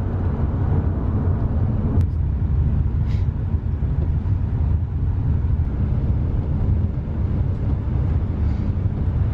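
Steady low rumble of a moving vehicle, with one sharp click about two seconds in.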